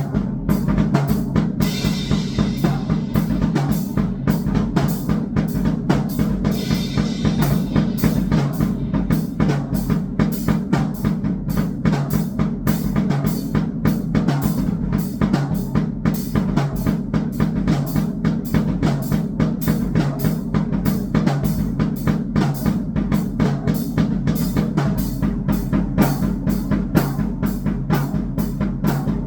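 Drum kit played in a fast, steady beat of bass drum and snare hits over a sustained low electronic drone. Two brighter splashes, like cymbal crashes, come about two and seven seconds in.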